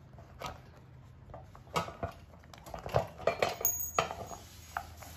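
Scattered light metallic clicks and clinks of a washer and bolt being worked off a push reel mower's wheel axle by hand, busiest in the middle.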